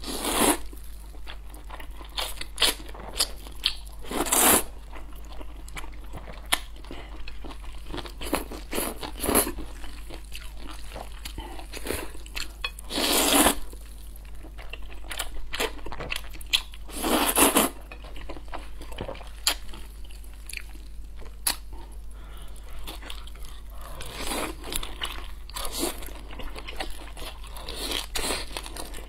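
A person eating black-bean-sauce noodles: several long slurps, each about a second, between wet chewing and smacking.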